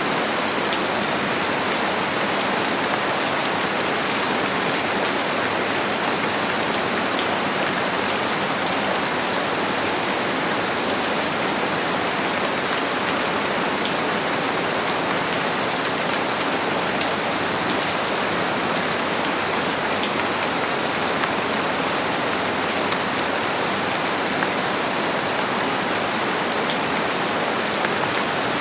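Steady heavy rain falling, a dense even hiss with fine drop patter throughout.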